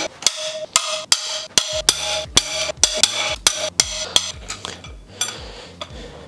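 Socket ratchet on a long handle clicking in a steady run of sharp clicks, about three a second, as a cylinder head bolt is undone; the first few clicks ring.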